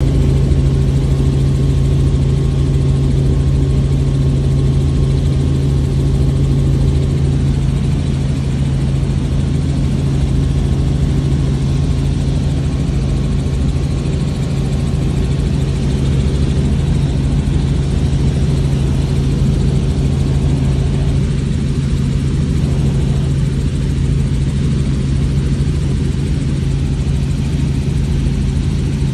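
Small helicopter in flight, heard from inside the cabin: a loud, steady drone of engine and rotor with a constant low hum.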